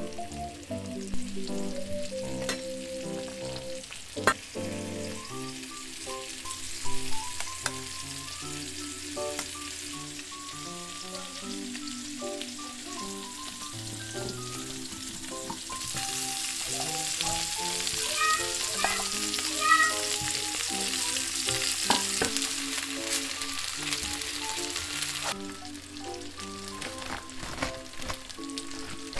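Salmon steaks sizzling in a frying pan under a sheet of aluminium foil, loudest over the middle of the span, with a few clicks and knocks of kitchen utensils. Light background music plays throughout.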